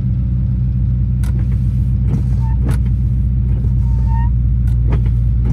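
Honda Prelude's engine idling steadily.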